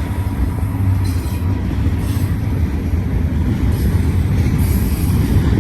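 Double-stack intermodal freight train rolling past close by: a steady, loud low rumble of wheels on rail, with a few faint, brief high-pitched wheel squeals.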